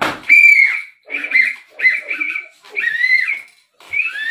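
A sharp slap of a slipper at the start, then a whistle blown in a series of toots: four short ones, and a longer one near the end that rises and falls in pitch.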